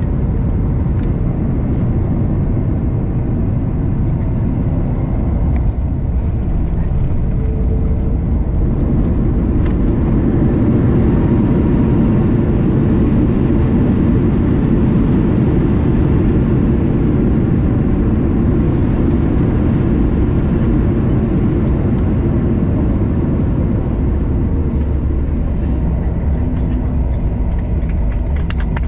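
Airliner cabin noise while the aircraft rolls along the runway: a steady, low rumble of engines and rolling wheels. It grows louder about nine seconds in and eases back a little near the end.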